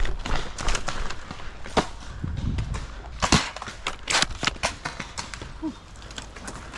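Footsteps of someone moving fast on outdoor ground: a string of irregular thuds and clatters over a steady low rumble.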